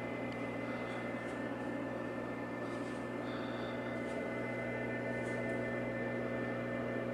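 Steady electrical hum of a reef aquarium's running equipment, made of several fixed tones over a soft even hiss. A faint brief high tone sounds about three seconds in.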